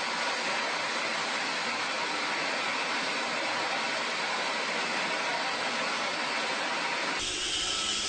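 Vacuum cleaner running with a steady rushing hiss; about seven seconds in, it gives way abruptly to a fuller, deeper noise.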